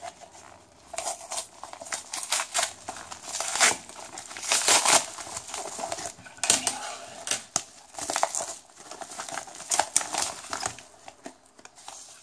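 A padded paper mailing envelope being handled and torn open, crinkling and ripping in irregular bursts. The loudest stretch is a few seconds in, and the noise thins out near the end.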